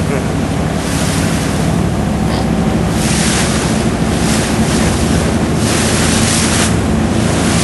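Motorboat under way: its engine runs steadily beneath the rush of water from the wake and wind buffeting the microphone. The wind and water noise grows stronger about three seconds in and eases shortly before the end.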